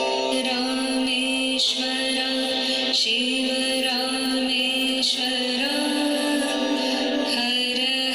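Slow background music with long held notes that change every second or two.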